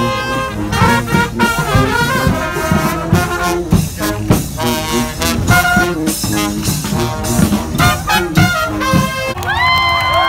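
Live street brass band playing a lively tune, with trumpets and a sousaphone, loud. Near the end the band cuts off and a few long held tones that slide up and down take over.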